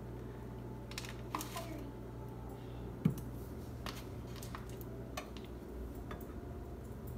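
Scattered light clicks and knocks of a spatula and cereal in a frying pan as it is stirred, with one sharper knock about three seconds in, over a steady low hum.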